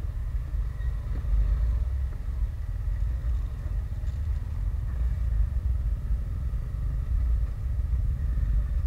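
Yamaha Sniper 150 motorcycle ridden slowly through traffic, heard from the rider's seat: a steady low rumble of engine and road.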